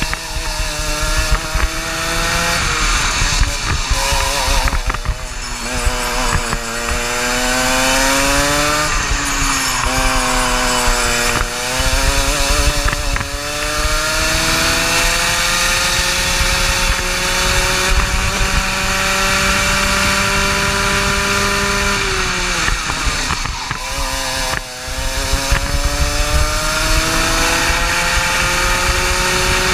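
Racing kart engine at full throttle through a lap. Its pitch climbs steadily along the straights and drops sharply as the driver lifts and brakes for corners, five times or so.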